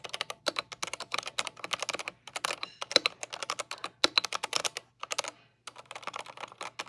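Fast typing on a Womier WK61 mechanical keyboard with red linear switches: rapid runs of keystrokes broken by three short pauses. The keys sound surprisingly silent.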